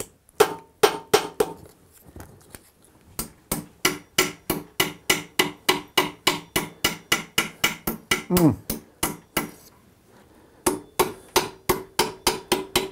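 Small hand hammer striking a small aluminium armour fitting to bend it out, first against a steel anvil and then over a steel rod. It goes in quick, even blows about three to four a second, with a pause of about a second about ten seconds in. The metal rings faintly between blows.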